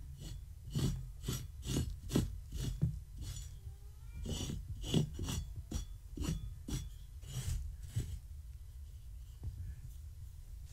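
Repeated quick scraping strokes of a small hand-held tool raked across a cloth blanket, about three a second, stopping about eight seconds in.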